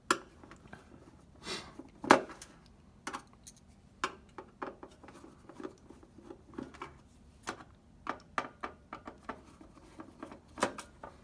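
Small scattered clicks and taps of a screwdriver and screws against the PS4's metal heatsink plate as its screws are undone and lifted out. The sharpest clicks come right at the start and about two seconds in.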